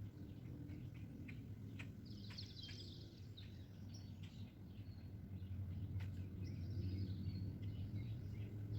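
Small birds chirping in short bursts over a steady low rumble, with a few faint clicks.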